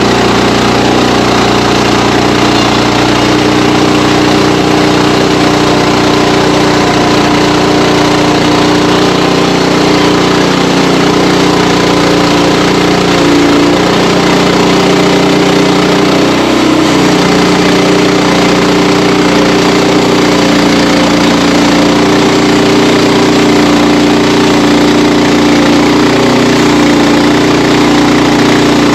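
Sawmill engine running steadily at one even pitch while the mill saws a wild cherry log.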